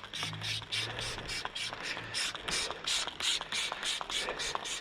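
Trigger spray bottle squeezed rapidly and repeatedly, each pull giving a click and a short spritz of cleaner, about five a second.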